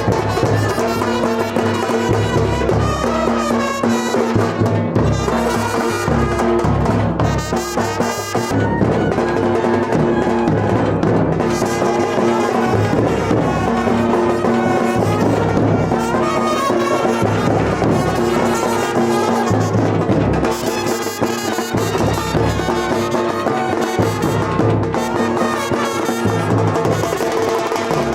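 Music played by brass instruments over drums, with held notes and a steady beat.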